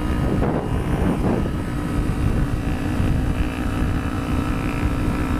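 Small parallel-twin motorcycle engine running steadily under way, with strong wind rumble on the helmet-mounted camera. There is a short rise and fall in engine pitch about a second in.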